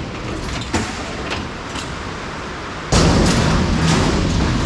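Heavy rain drumming steadily on a corrugated steel warehouse roof, mixed with knocks and clanks of scrap metal being unloaded from a trailer. The noise gets louder about three seconds in.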